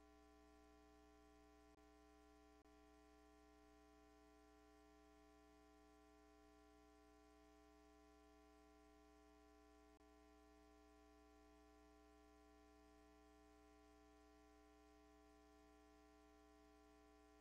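Near silence with a faint, steady electrical hum of several unchanging tones and a few tiny clicks.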